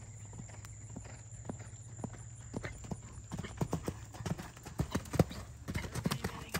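Hoofbeats of a horse cantering on sand footing, dull knocks in a rolling rhythm that grow louder from about halfway through as the horse comes close.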